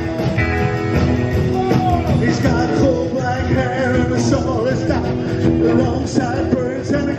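Rockabilly band playing live: upright bass, acoustic and electric guitars and drums on a steady beat, with a man singing lead that comes in about two seconds in.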